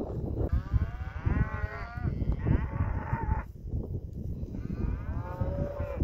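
A herd of cattle being driven, mooing: three drawn-out moos that bend in pitch, one after another.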